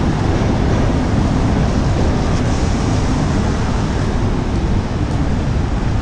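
Steady traffic noise on a wet city avenue: a loud, even rumble of passing cars with tyre hiss from the wet road.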